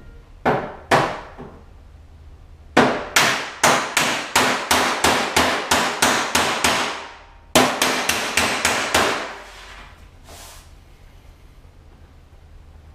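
Hammer and dolly beating out dents in a Land Rover's aluminium bonnet panel, each blow a sharp ringing metal strike. There are two blows, then a quick run at about three a second for some four seconds, a short pause, and a second run of about five blows.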